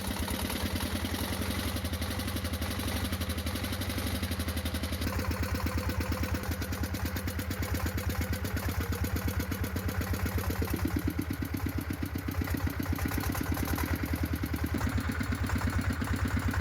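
Repaired air compressor engine running with a steady, even beat; the pulses grow stronger about two-thirds of the way through.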